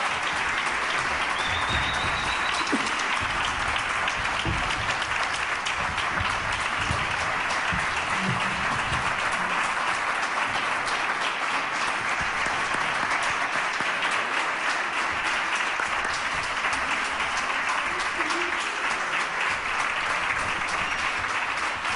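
Live audience applauding steadily, many hands clapping, with a brief high whistle about two seconds in.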